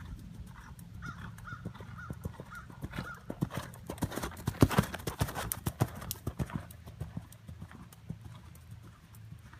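Hoofbeats of a ridden horse, growing louder as it comes close, loudest about five seconds in, then fading as it moves away.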